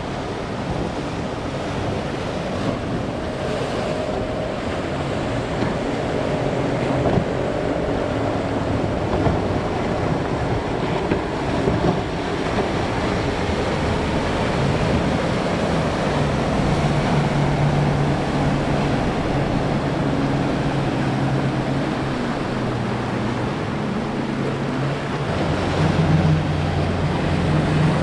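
Waves and surf rushing through a rough inlet, with wind buffeting the microphone. From about halfway, a steady low hum of boat outboard engines builds under the surf, with a deeper engine hum joining near the end.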